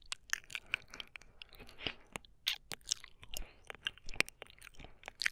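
Close-up wet mouth sounds of licking: a woman's tongue and lips making irregular smacks and clicks, several a second.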